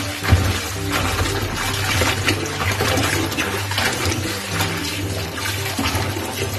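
Tap water running into a plastic bowl in a stainless-steel sink while hands swish and rinse sweet potato leaves, with steady splashing and sloshing.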